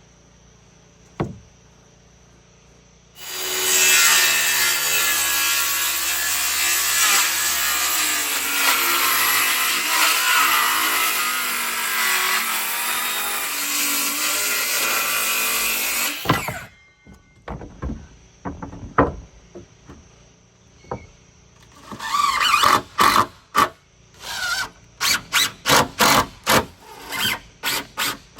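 Cordless power saw cutting through a wooden board for about thirteen seconds, its motor pitch wavering under load, then stopping abruptly. A series of knocks and sharp taps follows.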